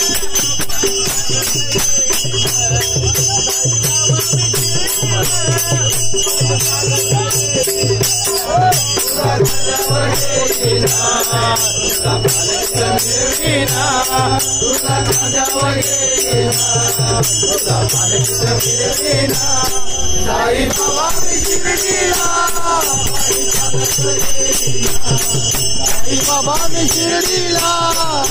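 Men singing a Marathi devotional bhajan together, with rhythmic hand-clapping and small percussion keeping a steady beat over a regular low pulse.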